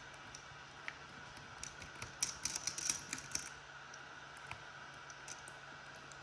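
Light, crisp clicks and ticks of a small Phillips screwdriver working the tiny non-magnetized screws out of a DJI Mini 2 drone's plastic body. The clicks come in a quick cluster about two seconds in, with scattered single ticks around it.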